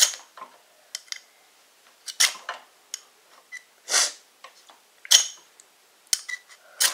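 A folding knife's spine scraped hard down a ferro rod, about six short rasping strikes at uneven intervals, with small metal ticks between them: a child throwing sparks at fatwood shavings and not yet getting them to catch.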